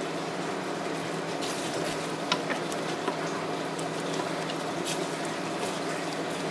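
Steady hiss of rain with a few faint clicks scattered through it.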